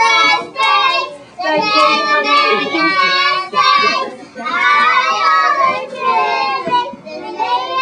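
A group of kindergarten children singing a song together, in phrases with short breaks between them.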